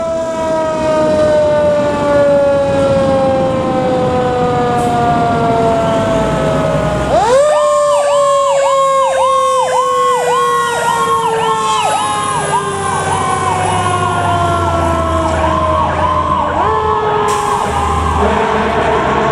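Fire engine's Federal Signal PowerCall electronic siren winding slowly down in pitch and sharply back up, about 7 s in and again near the end. From about 7 s in, a fast yelp of about two cycles a second is layered over it, with the truck's diesel engine rumbling underneath.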